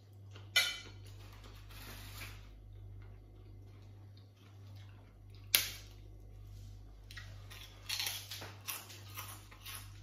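Prawn crackers being snapped and crunched while eaten, close to the microphone. There are two sharp cracks about five seconds apart, then a run of crunching chews in the last few seconds.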